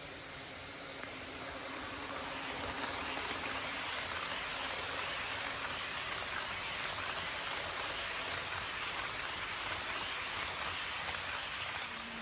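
HO scale model trains running on sectional track, with a BNSF train of refrigerator cars rolling past close by. The wheels on the rails make a steady rushing rumble that grows louder over the first couple of seconds as the cars near, then holds.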